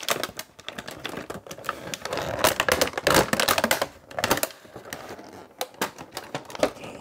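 Clear plastic plant sleeve crinkling and crackling in irregular clicks as it is pulled and handled, busiest in the middle.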